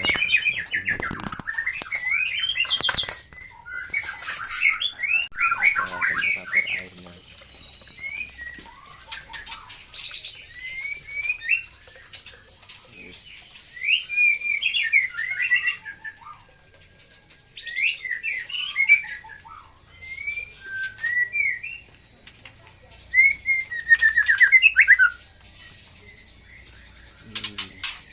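Caged songbirds singing: bursts of quick, rising and falling whistled phrases, a new phrase every two or three seconds with short pauses between.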